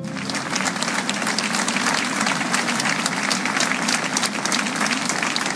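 Audience applauding: dense, steady clapping by many people.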